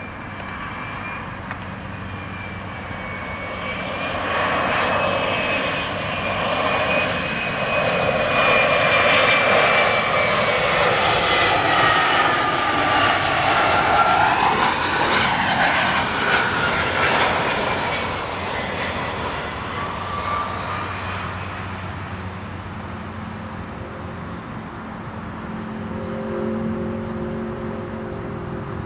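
Embraer 175 regional jet on approach flying past: the whine of its twin turbofan engines builds, is loudest through the middle, slides down in pitch as it passes, then fades. Near the end a lower, steadier jet engine drone from another airliner on the runway comes in.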